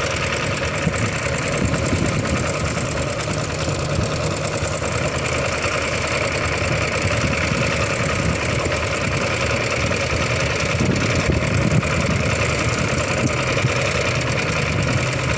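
Boat engine running steadily at an even pitch, a low continuous drone.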